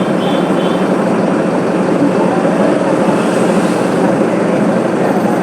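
Mercedes-Benz OF 1721 BlueTec 5 bus's diesel engine running with a loud, steady drone.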